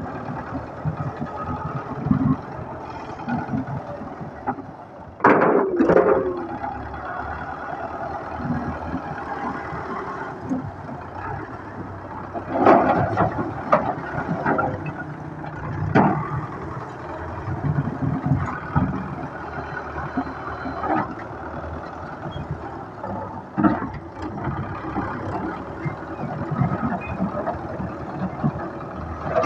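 A Russian tractor's diesel engine runs steadily under load while its front loader works a pile of broken bricks. A few seconds in there is a short, loud squeal. Around the middle, loud clattering bursts come as loads of bricks tip from the bucket into a trailer.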